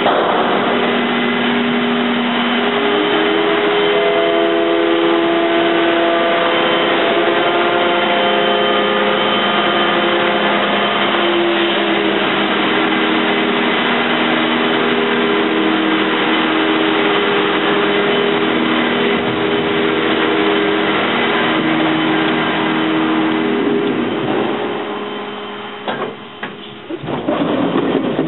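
Nike-Hercules missile elevator running as it raises its platform from the underground magazine to the surface: a loud, steady machine drone with several whining tones that shift in pitch every second or two. It winds down near the end as the platform comes to a stop, followed by a few knocks.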